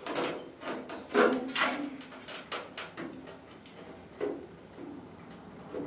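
Irregular knocks, clatters and scrapes as a sheet-metal patch panel is handled and a level is set against the steel truck bedside to serve as a straight edge. The loudest knocks come a little over a second in.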